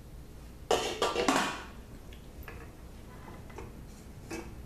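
Stainless steel saucepan lid lifted and set down with a clatter of metal strikes about a second in, followed by a few light clinks as a container is handled in the pot.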